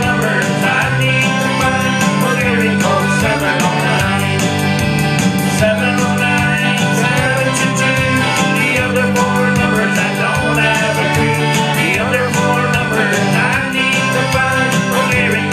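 Live country band playing through a PA: button accordion, electric guitar and electric bass over a steady beat.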